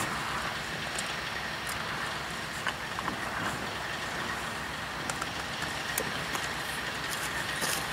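Diesel locomotive idling at a distance, a steady rumble with a few faint ticks.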